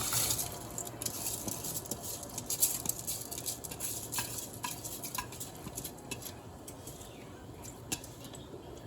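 Washed rice being tipped into a pot of water and stirred, with a hiss of falling grains and scattered clicks of a spoon against the pot. The hiss is strongest at first and fades away.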